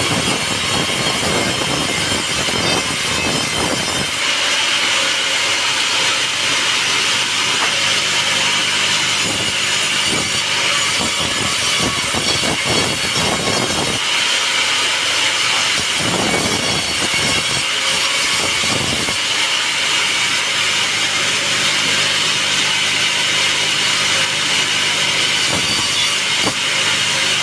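Sawmill band saw cutting through a teak log: a loud, steady, hissing cut over machine hum, with a few short knocks and abrupt shifts in the sound.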